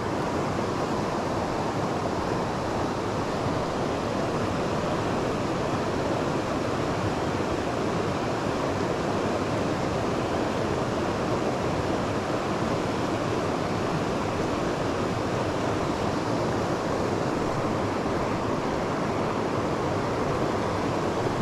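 River water rushing steadily, an even unbroken wash of flowing current.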